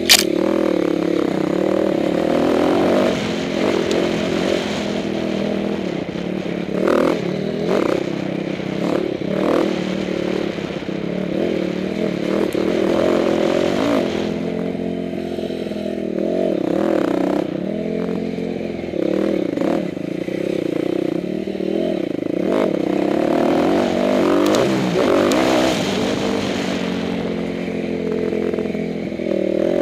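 Dirt bike engine running under a rider on a rough trail, its pitch rising and falling constantly with the throttle. Short sharp knocks and clatter break in now and then, the loudest just at the start.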